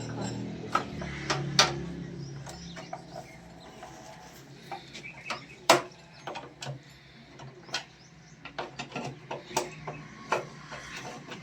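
Irregular sharp clicks and knocks of hands-on repair work, with a low hum that dies away a couple of seconds in.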